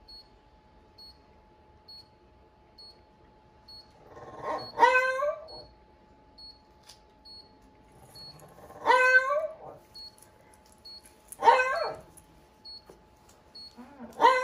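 Dog whining in four high-pitched cries of about a second each, spaced a few seconds apart, while its leg is held and wrapped in a padded bandage.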